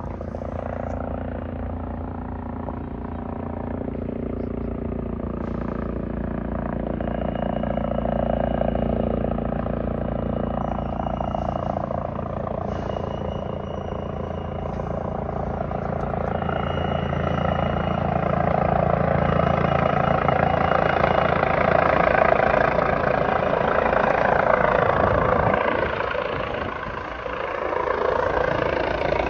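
Airbus H135 helicopter approaching to land: its rotor and turbine sound builds and grows louder, with a brief dip near the end, over a steady low hum.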